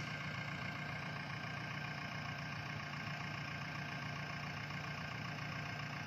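Diesel engine of a JCB backhoe loader running steadily, with no change in revs.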